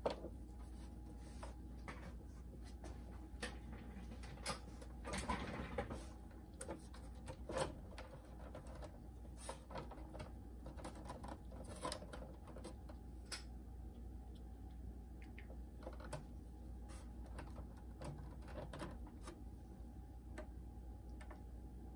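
Scattered small clicks and taps from a plastic boombox cabinet being handled as a heated knife blade is worked into its seam to cut a stuck screw post, with a brief scraping about five seconds in, over a low steady hum.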